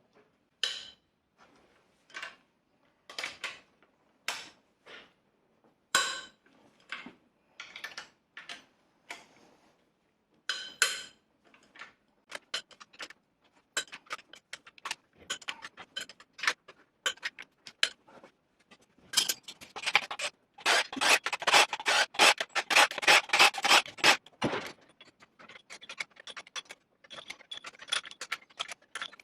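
Hand ratchet with an E16 external Torx socket clicking as cylinder head bolts are undone, at first as single clicks about a second apart, then faster, with a long quick run of clicks a little past the middle.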